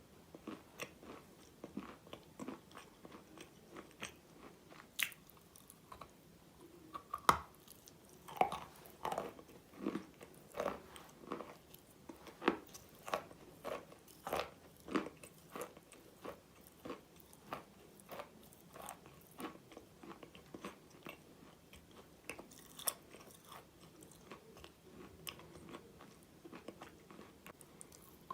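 A person biting and chewing hard, crunchy pieces of chalk-like mineral: sharp crunches at an irregular pace, a few a second, with softer chewing between, loudest through the middle.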